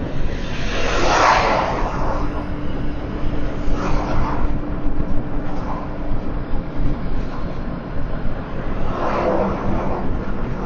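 Car driving along: steady road and engine noise, with brief louder swells about a second in and again near the end.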